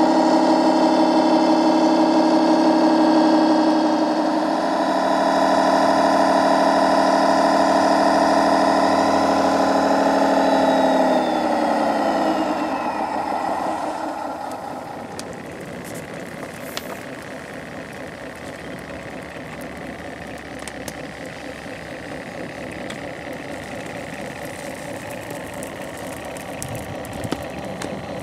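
Radio-controlled fire engine's motor running steadily with a whine, then winding down with falling pitch about eleven to thirteen seconds in; after that a quieter steady hum with a few light clicks.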